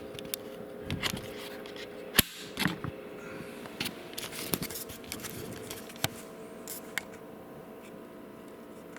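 Handling noise as the camera and the model are moved about: scattered clicks and light taps, one sharp click about two seconds in, over a steady low hum.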